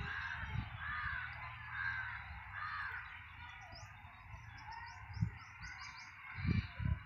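Birds calling in open farmland: four harsh caws, typical of a crow, in the first three seconds, then a quick run of high chirps from small birds. A steady background hiss runs under them, and a few low thumps come near the end.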